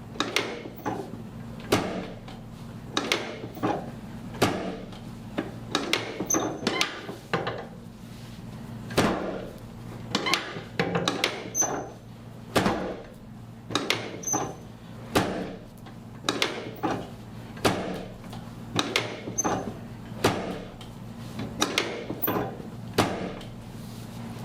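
Chiropractic drop table clunking again and again as its sections drop under quick thrusts along the lumbar spine: sharp knocks about one or two a second, irregularly spaced, over a low steady hum.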